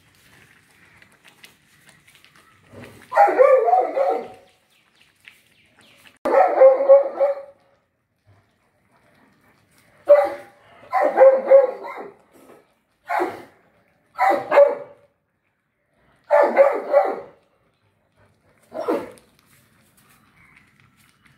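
A dog barking in about seven bouts of one or more barks each, with quiet gaps between them.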